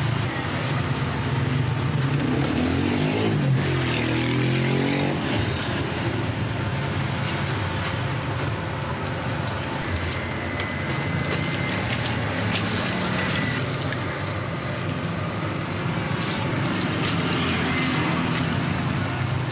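Electric sugarcane juice press running with a steady low hum as it crushes cane. Its pitch wavers briefly a few seconds in.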